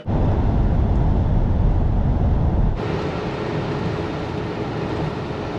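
Vintage Ford Econoline van driving on the road: a steady low rumble of engine and road noise. About three seconds in it cuts to a slightly quieter stretch with a faint steady hum.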